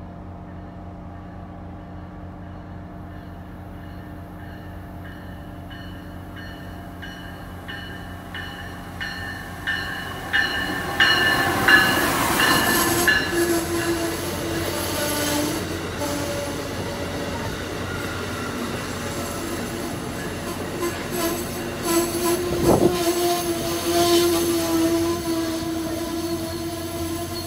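Amtrak passenger train with Amfleet coaches approaching, its sound growing louder over about ten seconds, then passing close by with loud wheel-and-rail noise. A steady tone runs over the noise, and there is one sharp knock about 23 seconds in.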